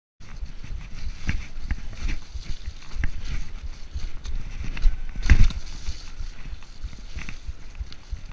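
Mountain bike rolling fast over rough trail, its frame, chain and wheels rattling with many irregular knocks and clicks over the tyre noise, and one hard knock about five seconds in.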